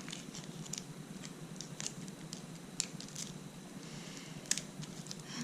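Quiet handling of trading cards and their packaging: scattered faint clicks and light taps over a low hiss, a little stronger about three seconds in and again near the end.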